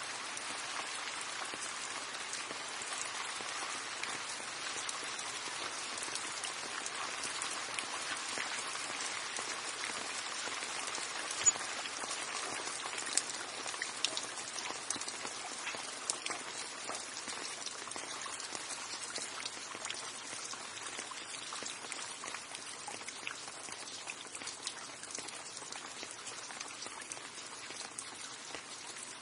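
Steady rain falling onto a surface, a constant hiss dotted with individual drop hits, with a few sharper, louder drops landing near the middle.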